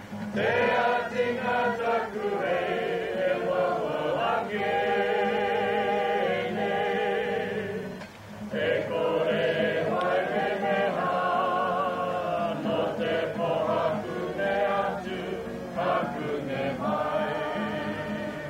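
A group of voices singing together in long held notes with a slight waver, in phrases, with a short pause about eight seconds in.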